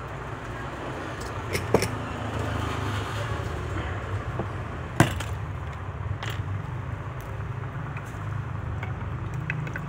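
Small sharp metal clicks of pliers and a pin working on a metal watch bracelet while a link is taken out, the loudest about halfway through, over a steady low hum.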